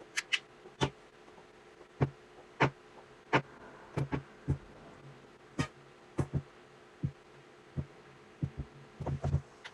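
Irregular clicks and taps of buttons and controls on an Akai MPC sampler as samples are loaded into a drum program. Some presses carry a low thud, with a quick cluster of presses near the end, over a faint steady hum.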